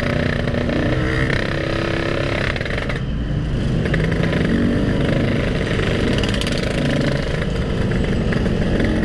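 Yamaha RX-King's two-stroke single-cylinder engine running at low speed in slow traffic, its pitch rising and falling a little with small throttle changes.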